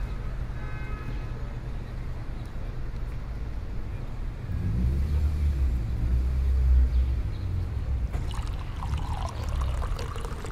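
Low rumble of road traffic, swelling about halfway through, with light clinks of cups and utensils in the last couple of seconds.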